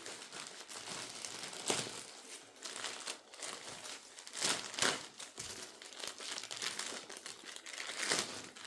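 Packaging being crinkled and pulled away by hand while a parcel is unwrapped: irregular rustling and crackling, with a few louder crinkles about two seconds in, near the middle and near the end.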